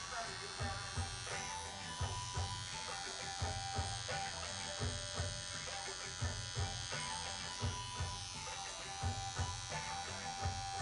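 Pen-style tattoo machine buzzing steadily as the needle works into skin. Background music with a steady beat plays over it.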